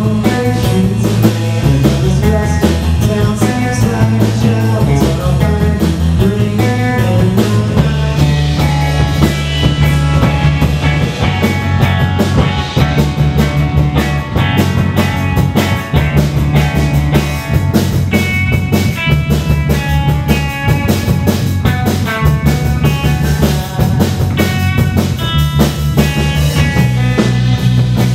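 Live rock band playing an instrumental stretch without singing: a Telecaster-style electric guitar over a driving drum kit, with a repeating low riff that steps between notes.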